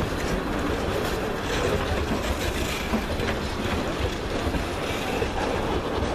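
Freight train's tank cars and boxcars rolling past at low speed: a steady rumble of steel wheels on rail, with a few scattered clicks at the rail joints.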